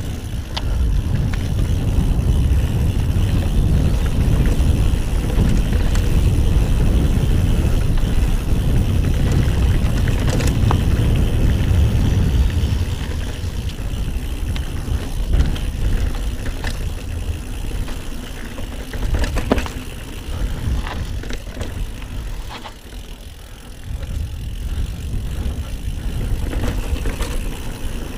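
Mountain bike ridden fast on dirt singletrack: a steady low rumble of tyres on the trail and air buffeting the handlebar-mounted microphone, with scattered clicks and rattles from the bike. It quietens for a couple of seconds a little past the three-quarter mark.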